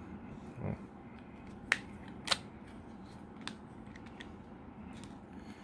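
Small, sharp clicks and taps from handling a vape pod, its coil and an e-liquid bottle while the coil is being primed: two distinct clicks about half a second apart near the middle, then a few fainter ticks.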